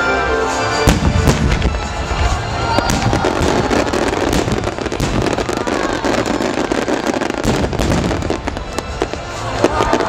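Aerial fireworks bursting in a rapid barrage with dense crackling, starting about a second in, over music played along with the display.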